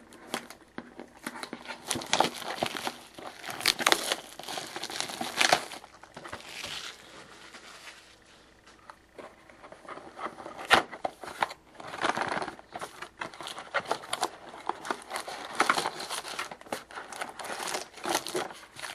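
Cardboard, plastic wrap and foil trading-card packs crinkling, crackling and tearing in irregular bursts with sharp clicks as a hockey-card hobby box is opened and its packs taken out.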